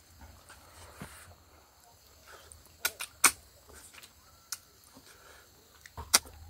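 A person eating rice and pork by hand and chewing, with several sharp mouth clicks and smacks. The loudest come about three seconds in and near the end, as food goes into the mouth.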